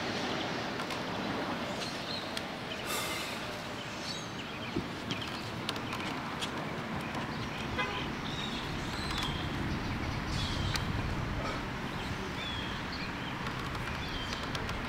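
Steady outdoor background noise with short high chirps every second or two and a few faint clicks.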